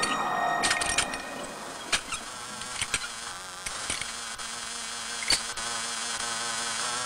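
Soundtrack effects: a faint wavering, buzzing scratchiness with sharp clicks and taps scattered irregularly through it.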